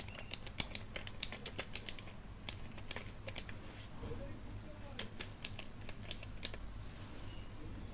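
Computer keyboard typing: irregular, quick keystroke clicks as text is entered, over a low steady hum.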